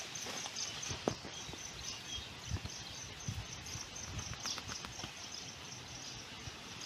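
Rural outdoor ambience: a high, rapid chirping pulse repeating evenly about six times a second, with scattered soft knocks and rustles, the clearest about a second in.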